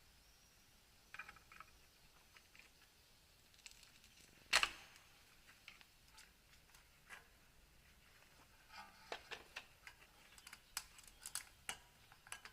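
Light clicks and taps of tools and brake parts being handled, with one sharp knock about four and a half seconds in and a quick run of clicks, some briefly ringing like metal, near the end.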